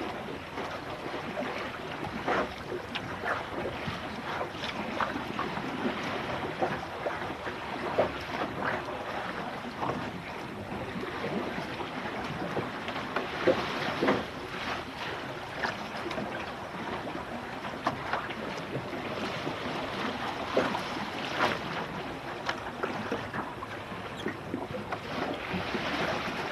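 Water rushing and splashing irregularly against the hull of a Finn dinghy under sail, with wind buffeting the microphone. One splash about halfway through is louder than the rest.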